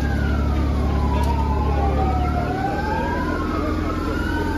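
Two emergency-vehicle sirens wailing, each sweeping slowly up and down in pitch, out of step with each other, over a low engine rumble that eases a little about halfway through.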